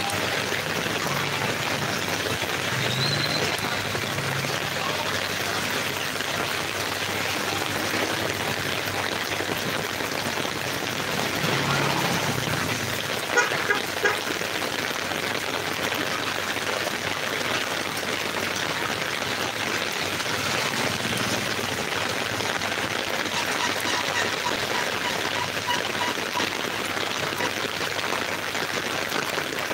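Steady rain falling on an umbrella held overhead and on the wet road. There are two brief loud knocks about 13 to 14 seconds in.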